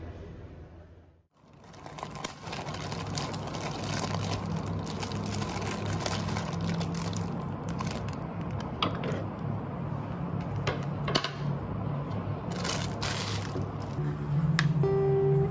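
Thin plastic bag crinkling and rustling as leafy greens are handled, with many sharp crackles and a louder patch near the end. Acoustic guitar music fades out about a second in and comes back near the end.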